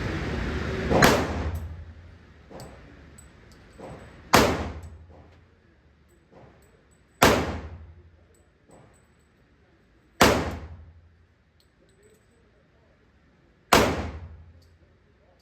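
Five single handgun shots, spaced about three seconds apart as in slow aimed fire, each followed by a short echoing decay. A steady low rumble fades out over the first second and a half.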